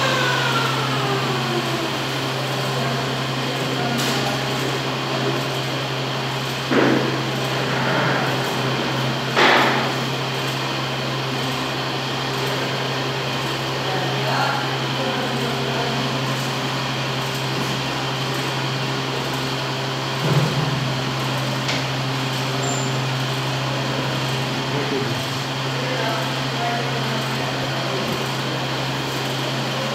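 Steady low hum of an electric pedestal fan, with a few brief rasps of masking tape being pulled off the roll and pressed onto the wall.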